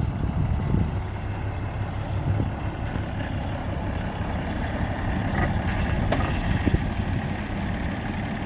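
2008 Dodge Ram 2500 pickup truck's engine running steadily at idle, a low rumble with a few faint clicks over it.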